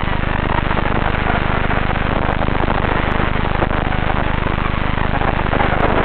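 FPV racing quadcopter's motors and propellers buzzing in flight, heard raw through the quad's onboard camera microphone as a steady, hissy drone with no highs that swells a little with throttle.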